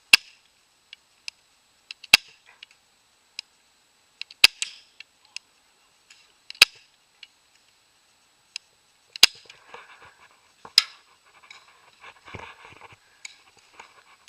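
Airsoft gun firing six single shots about two seconds apart, each a sharp crack, with fainter clicks in between and some rustling near the end.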